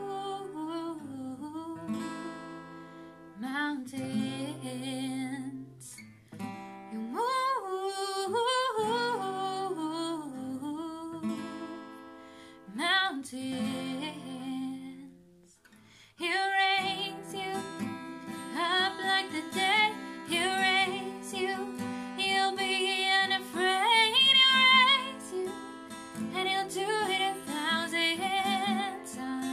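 Acoustic guitar played with a woman singing a slow melody over it. The music dies down almost to nothing about halfway through, then comes back fuller.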